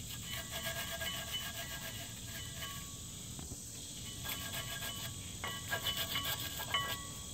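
Steel wire brush scrubbing a rear brake caliper bracket's pad abutments in quick scratchy strokes, cleaning off rust and scale before new pad hardware goes on. It comes in two bouts, with a short pause about three seconds in.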